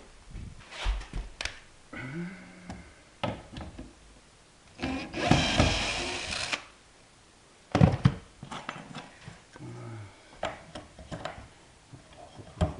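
Workshop handling knocks and clatter of plywood and parts, with a cordless drill or screwdriver running once for under two seconds about five seconds in, driving a screw.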